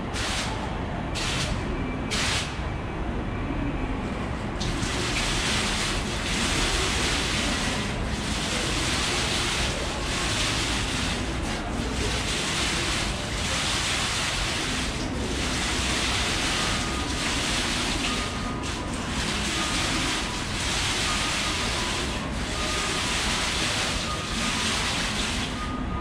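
Curtain of water drops from the Osaka water clock's computer-controlled nozzles falling and splattering into the basin below. A few short separate splashes come in the first two seconds, then a steady rushing hiss of falling water that swells and eases as the printed patterns come down.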